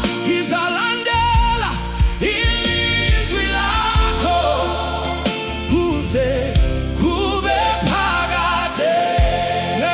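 Southern African gospel song: voices singing over a band with a deep bass line and a regular beat.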